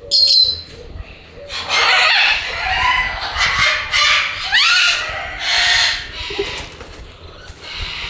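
Cockatoos and other parrots in breeding aviaries screeching and squawking: a string of loud, harsh calls about once a second, some sweeping quickly up in pitch.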